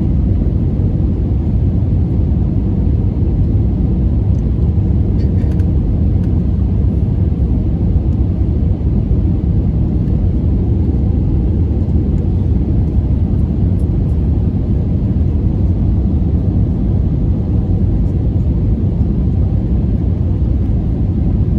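Steady cabin noise inside a jet airliner descending on approach: engine and airflow rumble, heaviest in the low end and even throughout, with a faint steady hum.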